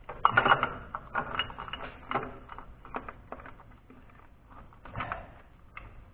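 Scattered clicks, knocks and rustling of gloved hands and a socket being worked into place over the IPR valve among metal and rubber parts in a diesel engine bay. The sounds come thickest in the first couple of seconds, with another knock about five seconds in.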